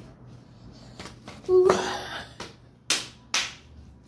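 A loud, short rushing burst with a brief squeal at its start, then two sharp slaps about half a second apart.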